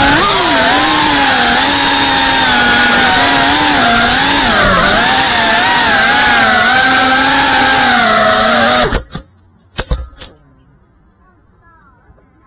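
Motors and propellers of a GEPRC Cinelog 35 ducted cinewhoop FPV drone whining, the pitch rising and falling with throttle. About nine seconds in the drone crashes into a tree: the whine cuts off suddenly with a few sharp knocks, and then it is quiet.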